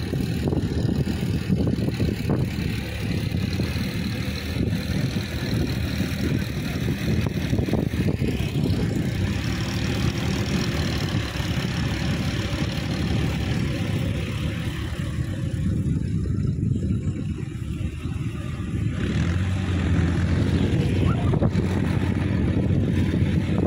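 Diesel farm tractor engine running steadily under load, driving a rotary tiller through the field soil. It grows louder about 19 seconds in.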